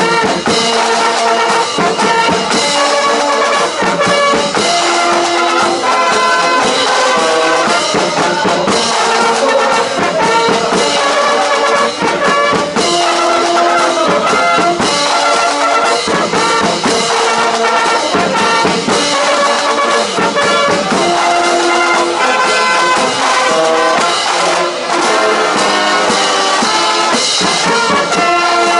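Marching brass band playing a march at full volume, led by trombones and trumpets over a drum beat.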